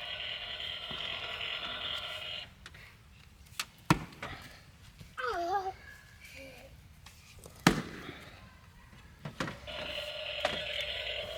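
Firewood being split: two loud, sharp wooden strikes about four seconds apart, with a few fainter knocks. A steady hum made of several tones runs at the start and starts again near the end.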